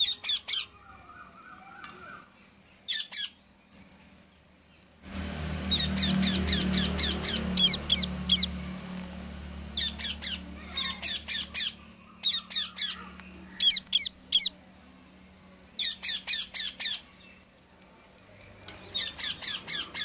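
A parakeet giving repeated bursts of shrill, rapid squawks, each burst a second or so of quick calls, about eight bursts in all. A low hum starts suddenly about five seconds in and fades over the next few seconds.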